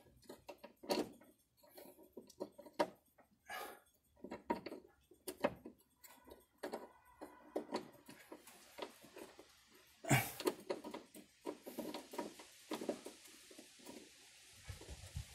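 Irregular clicks, clanks and rustles of hands working metal car parts and tools while fitting a piece of the carburetor and throttle linkage. There is a louder knock about ten seconds in.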